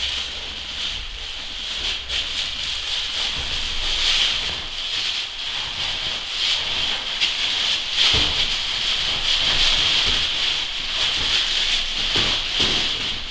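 Crinkling and rustling of the wrapped refrigerant line set as it is handled and pushed through the wall hole, with scattered irregular rustles and knocks over a steady high hiss.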